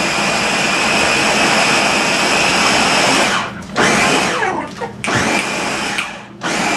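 Push-down personal blender running with a high steady whine as it blends an ice-cream milkshake mix. In the second half it cuts out briefly three times, then runs on.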